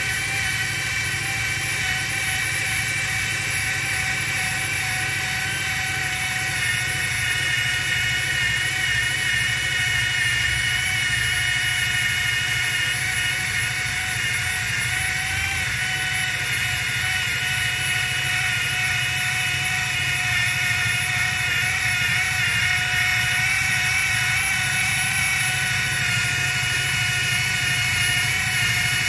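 Drill running steadily below full speed, spinning a 3M rubber eraser wheel pressed against a vinyl decal on a jet ski hull. It makes a steady whine that holds its pitch, with the wheel rubbing the decal off.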